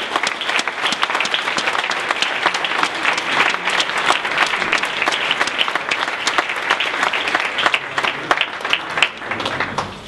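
Audience applauding: dense, steady clapping from a roomful of people that stops near the end.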